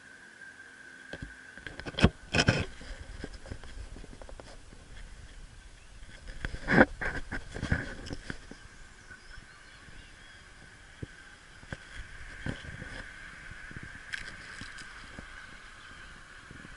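Camera handling noise: loud knocks and rubbing as the camera is picked up from the ground, then lighter steps on a gravel path, over a steady high hum.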